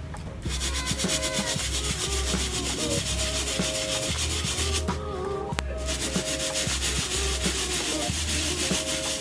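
A brush scrubbing a sneaker in rapid strokes, a steady rasping hiss that stops for a moment about five seconds in, with background music underneath.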